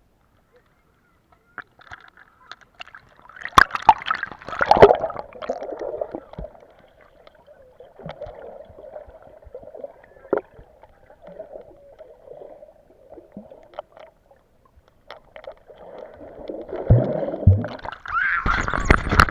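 Sea water gurgling and sloshing around an action camera in the sea, muffled, with scattered knocks and splashes. It grows louder and busier near the end.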